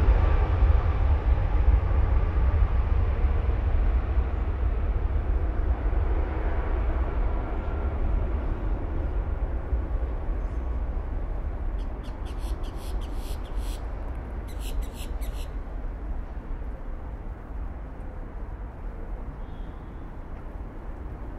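Jet engines of an Avianca Cargo Airbus A330 freighter at takeoff power: a deep rumble that fades steadily as the aircraft rolls away down the runway and climbs out. About twelve seconds in, two short runs of high rattling clicks cut through.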